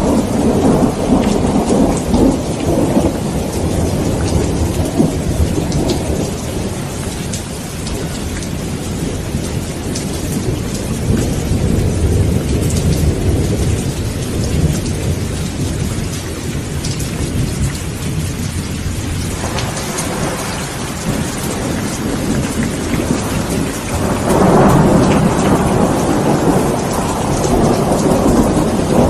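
Steady rain falling with thunder rumbling and rolling underneath, swelling into a louder rumble near the end.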